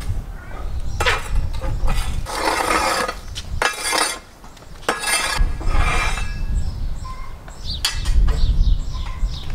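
Several short scraping, rustling handling noises over a steady low rumble. Near the end a bird chirps repeatedly in quick, falling notes.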